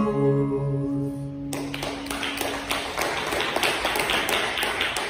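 Acoustic guitar's final notes ringing out and dying away, then about a second and a half in, applause breaks out and carries on, fading just after the end.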